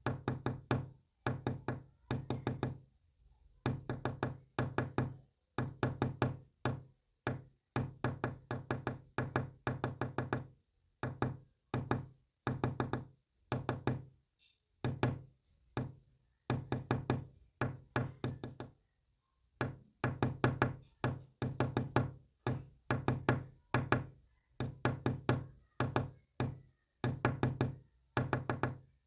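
Quick knocks on a hard surface, about six a second, in runs of several strokes broken by short pauses, tapped out as Morse code.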